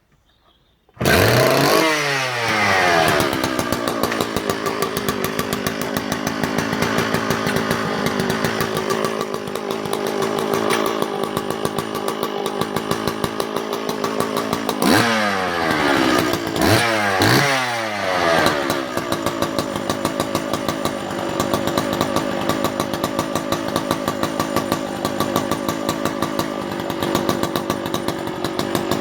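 Sachs Dolmar 119 vintage two-stroke chainsaw, run without its bar and chain. It fires about a second in, fast at first on the throttle lock, then drops back to a steady idle. Around the middle it is blipped up to high revs twice, and after each blip it falls back to idle.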